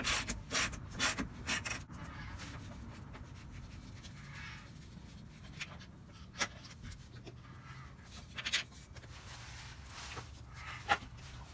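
Socket wrench ratchet clicking in quick irregular runs as a shock bolt is backed out, then a few scattered single clicks and knocks.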